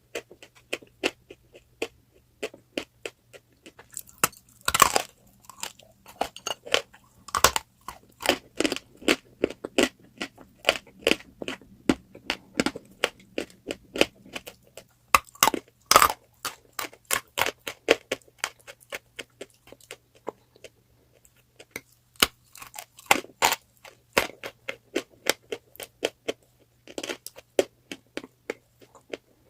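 Someone biting and chewing pieces of crunchy eating chalk: a dense run of crisp crunches, with a few louder snapping bites and a brief lull about two-thirds of the way through.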